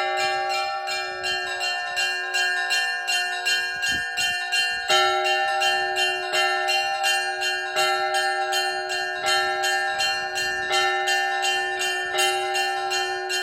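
Russian Orthodox church bells rung together in a full peal (zvon): small bells struck rapidly, a few strikes a second, over the sustained ringing tones of larger bells, in a pattern that repeats about every second and a half.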